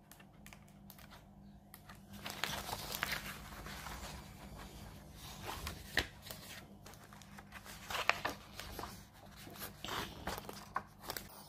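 Crinkling and rustling of a cross-stitch kit's packaging and paper being handled, starting about two seconds in, with a few sharp clicks.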